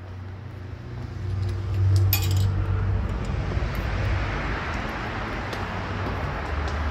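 Low rumble of street traffic that grows over the first two seconds, with a brief metallic jingle about two seconds in.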